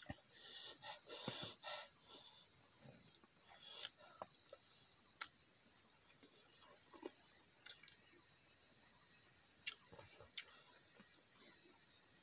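Faint, steady chirping of insects, a fast pulsing trill over a high hum, with scattered small clicks and smacks from eating by hand.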